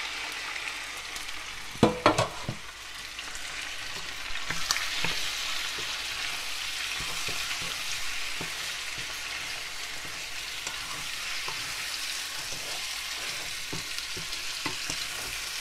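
Raw chicken pieces and diced red onion sizzling in oil in a frying pan as they are stirred, with a couple of loud knocks about two seconds in, then a steady sizzle with light scraping clicks.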